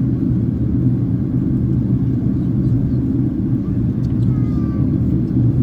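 Steady low rumble of engine and airflow noise inside the passenger cabin of a Boeing 767-300ER in flight.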